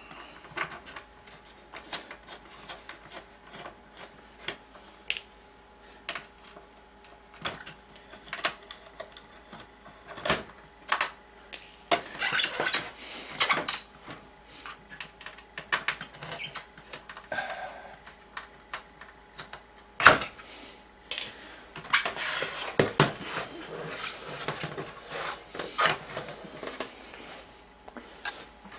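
Clicks, knocks and rattles of a disassembled LCD TV's plastic casing and metal panel frame being handled, tilted up and set back down, with busier stretches in the middle and near the end and one sharp knock about twenty seconds in.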